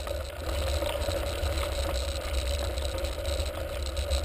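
Mountain bike riding over a rough track: low wind rumble on the microphone, a steady hum and small scattered rattles and clicks from the bike.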